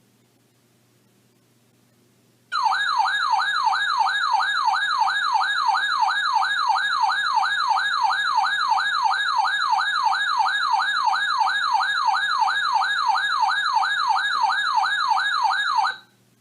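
Electronic warbling alert siren from a weather radio receiver, sounding for about thirteen seconds to announce an incoming severe weather warning. It rises and falls about three times a second and cuts off abruptly near the end.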